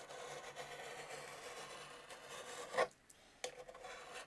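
A knife blade shaving along the edge of iron-on wood edge banding, trimming the overhang flush: a faint, steady rasping scrape. Near three seconds in there is one short louder scrape, then a brief pause before the scraping starts again.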